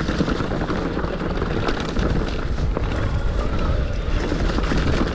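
Wind rushing over the camera microphone as a Luna X1 electric mountain bike rolls along a leaf-covered trail, with many small crackles and clicks from the tyres on dry leaves and the bike rattling over the ground.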